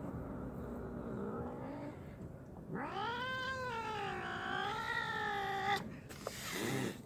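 Domestic cat yowling in protest at being taken from the window: a low wavering moan, then one long wavering caterwaul of about three seconds, then a short noisy burst near the end.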